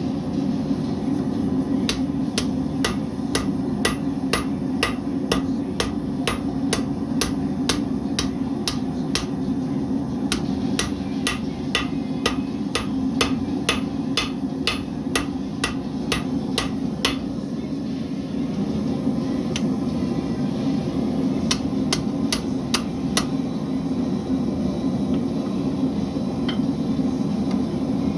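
Blacksmith's hammer striking hot metal on an anvil, ringing blows in a steady rhythm of about two to three a second for some fifteen seconds. After a pause comes a short run of about five more blows. A steady low roar of the forge runs underneath.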